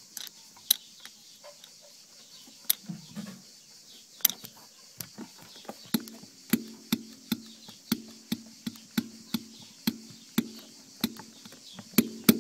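KW Variant 1 coilover rear suspension clunking: sharp knocks, scattered at first, then a regular run of about two to three a second with a creaking hum under them from about halfway. The uploader traces the noise to the rear shocks' ventilation discs and bump stops.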